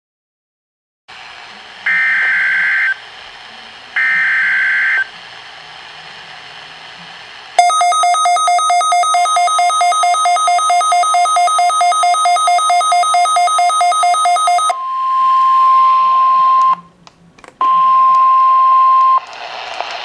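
Midland weather radio receiving a NOAA Weather Radio Required Weekly Test. Over faint static come two one-second bursts of warbling SAME digital header data, then the radio's own loud pulsing alert beep sounds for about seven seconds over a steady warning alarm tone. The steady tone carries on alone, drops out briefly and stops near the end.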